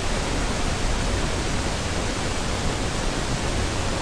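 Steady, even hiss: the background noise of the lecture recording, with no change through the pause.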